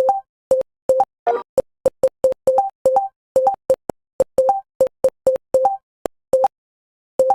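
Typing program's key-press sound effects: a short electronic blip for each keystroke, about three a second in an uneven typing rhythm, mostly on one pitch with some a little higher. There is one fuller sound about a second in and a brief pause near the end.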